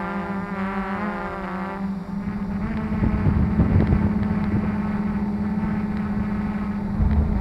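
Quadcopter drone's electric motors and propellers buzzing steadily with a high, many-toned hum, the pitch wavering and shifting about two seconds in as the drone moves off from the hover and flies forward, growing louder and rougher for a couple of seconds after.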